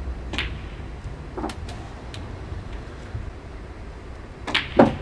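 Snooker balls clicking on the table: a cue tip striking the cue ball, then about a second later a sharp clack of ball hitting ball. Near the end another cue strike, followed a fraction of a second later by a louder clack of the cue ball hitting an object ball.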